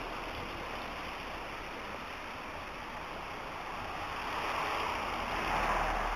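Steady hiss of a wet city street in the rain, with traffic tyres on wet road, swelling louder about four and a half seconds in.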